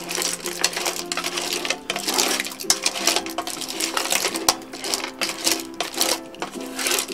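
Clam and mussel shells and prawns clattering against a metal pot and each other as they are stirred with a wooden spoon: a dense, irregular run of clicks and rattles.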